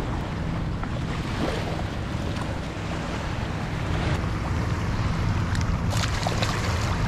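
Small waves washing over a sandy shoreline, with wind buffeting the microphone in a steady rumble. Near the end, short splashes as a fluke is grabbed in the shallow water.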